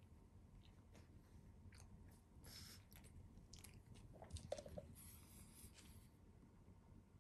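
Pekingese dog faintly chewing and crunching a treat: small scattered crunches and clicks, with a slightly louder cluster about four and a half seconds in.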